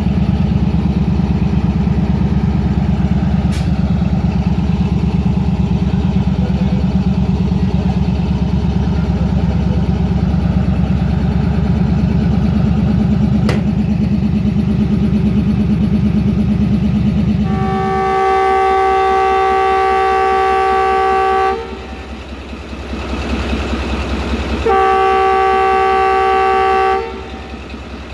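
ZCU-30 diesel-electric locomotive's engine running close by with a heavy, steady throb. It then sounds its multi-tone horn twice: a long blast of about four seconds and a shorter one of about two seconds.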